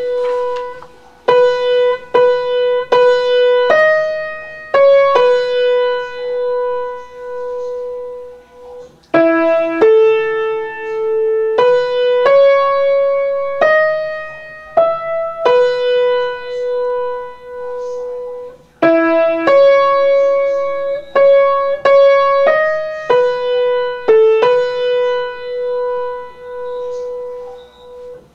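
Keyboard in a piano voice playing a slow single-note melody, the soprano line of a choral piece. One struck note at a time, several held long and left to die away.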